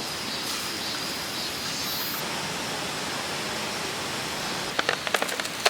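Steady rushing of a mountain valley stream, with a few short clicks and rustles near the end.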